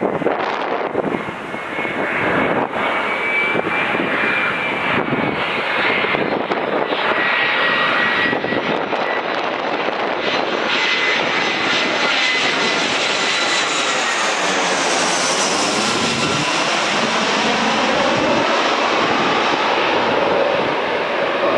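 Airbus A320-200 airliner on final approach with gear down, its twin jet engines passing low overhead: a steady, loud jet noise with a high whine that drops in pitch about two-thirds of the way in as the plane goes by.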